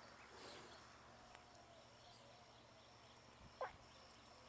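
Near silence with faint outdoor background, broken about three and a half seconds in by one short, sharp animal call.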